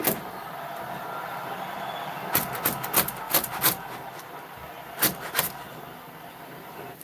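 Bambu Lab P1S 3D printer running with a steady mechanical whir, broken by a run of sharp clicks about two and a half seconds in and a few more around five seconds.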